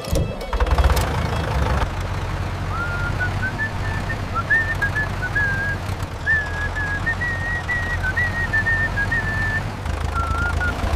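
Someone whistling a simple wavering tune, starting about three seconds in and stopping shortly before the end, over a steady low rumble.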